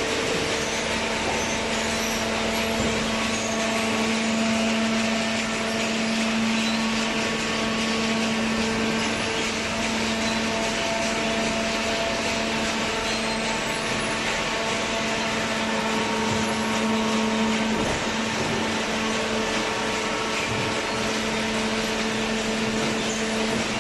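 Horizontal hydraulic baling press running: a steady machine hum with a constant drone that sets in about half a second in, over an even whirring noise.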